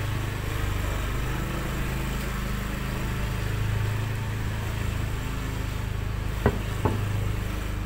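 A small engine running steadily with a low, even hum. Two sharp clicks come close together about six and a half seconds in.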